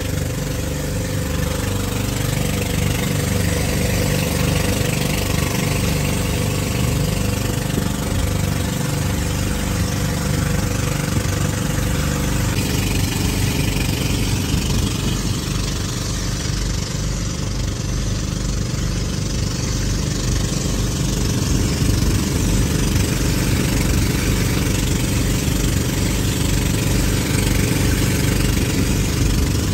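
An engine running steadily, with a slight change in its note about twelve seconds in.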